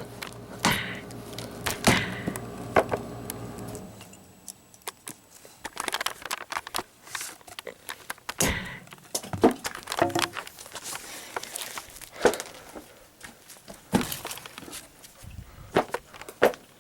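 A small stapler being smashed: a string of irregular sharp knocks and clicks, with a faint steady hum under the first few seconds.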